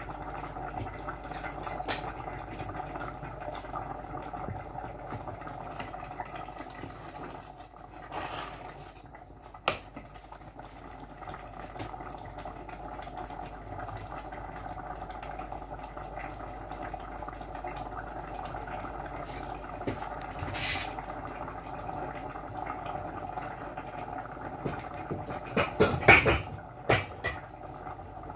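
Pot of cassava-leaf sauce simmering on an electric cooker: a steady bubbling hiss with a few sharp clicks, and a louder burst of knocks and clatter near the end.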